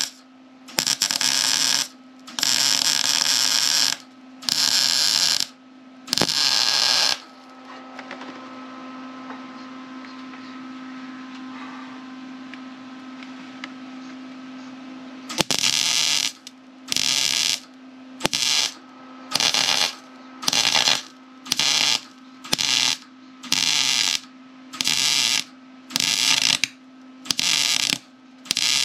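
MIG welder arc crackling on thin car-body sheet metal in separate bursts. There are four welds of a second or so in the first seven seconds, then a pause, then from about halfway a quick run of short stitch welds, roughly one a second.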